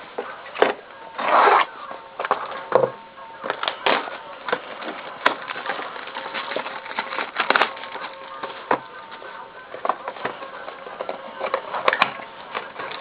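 A trading card box being unwrapped and opened by hand: irregular crinkling and crackling of the plastic wrapper, with scrapes and taps of the cardboard box.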